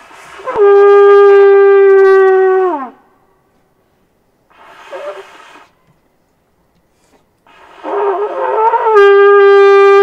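Conch shell (shankh) blown: one long, steady note that sags in pitch as the breath gives out, then a short breathy, failed attempt, then a rough sputtering start that settles into another steady note near the end. It is sounded as the call to stand at attention for the flag hoisting.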